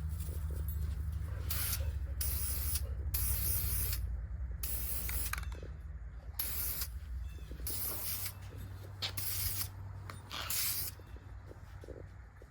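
Aerosol can of satin black spray paint hissing in about nine short bursts, each a second or less, as a light coat is sprayed on.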